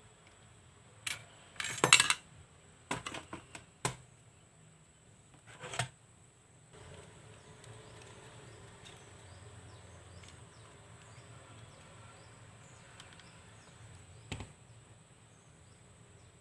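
Small hard parts being handled and fitted during laptop hardware work: a cluster of sharp clicks and knocks about two seconds in, a few more shortly after, and single knocks near six seconds and near the end.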